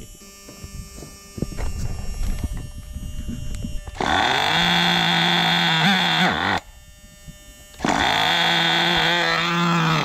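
Two starting attempts on a small nitro RC engine, each a loud, steady, high buzz that spins up and cuts off suddenly after two to three seconds, with handling clatter before them. The owner blames the engine's failure to keep running on a fuel mixture set a bit too lean.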